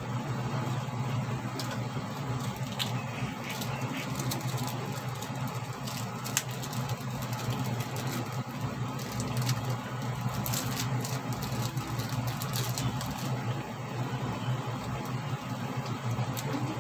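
Pork simmering in liquid in a pot on a gas stove: scattered small pops and crackles of bubbling over a steady low hum, the pops thickest about halfway through.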